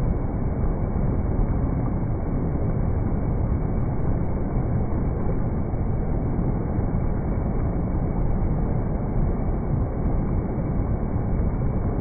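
Mountain stream rushing over rocks in white-water rapids: a steady, dull rush of water, heavy in the low end.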